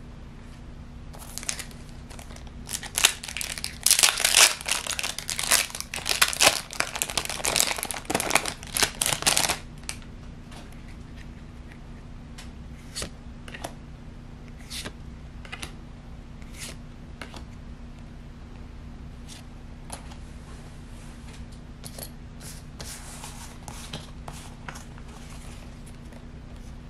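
Packaging crinkling and tearing for several seconds, then trading cards being handled and flicked through, with soft clicks and slides of card against card.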